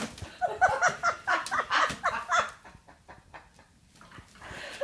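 Animal calls: a quick run of short, pitched yelps or chirps for about two seconds, then quiet.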